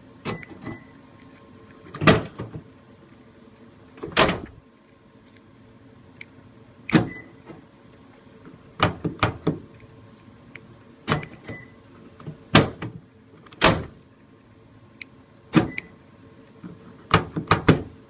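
Power tailgate lock actuator (a Pop & Lock on a 2018 Toyota Tundra) clunking as the tailgate is locked and unlocked repeatedly from the factory key-fob remote, with small clicks from the fob's buttons. The clicks come one at a time at irregular gaps, some in quick runs of two or three, and show that the lock is wired correctly and responding to the remote.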